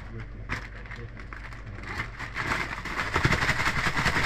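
Plastic bag crinkling and rustling as it is handled and shaken. It starts up about two seconds in and grows into a dense, loud crackle, with a few soft knocks.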